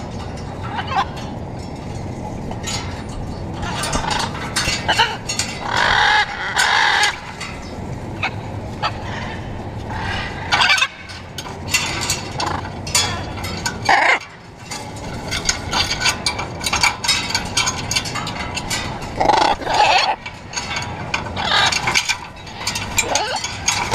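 Blue-and-yellow macaws giving loud, harsh squawks, repeated every few seconds.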